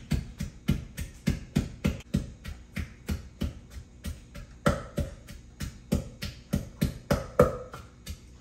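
Wooden pestle pounding roasted chillies, shallots and garlic in a deep mortar: a steady run of dull knocks, about three a second.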